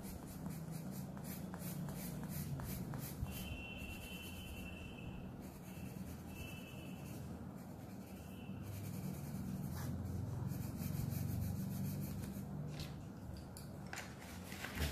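Black colour pencil scratching on drawing paper in quick, short back-and-forth shading strokes.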